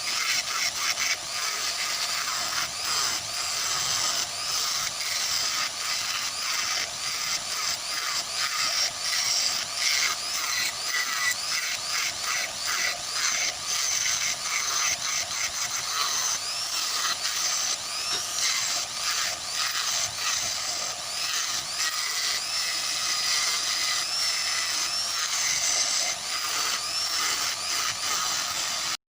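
A tool working wood, a continuous scratchy rasping made of many quick irregular strokes, with faint high chirps in the second half; it stops abruptly at the end.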